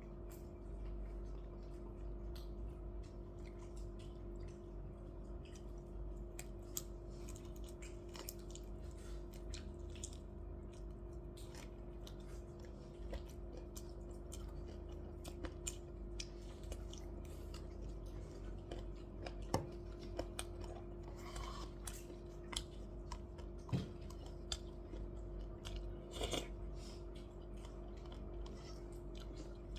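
A person chewing and crunching food close to the microphone, with many short crackling clicks, more of them in the second half, over a steady hum.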